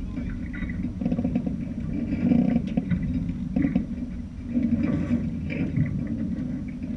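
Background music with guitar and bass guitar, in a steady repeating rhythm.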